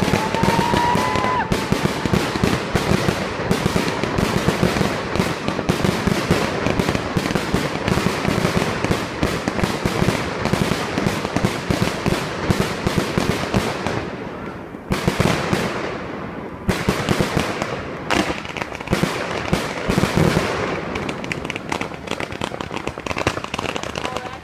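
Fireworks going off in a dense, continuous barrage of crackling pops for about fourteen seconds. After a brief lull, further clusters of bangs and crackles follow until near the end.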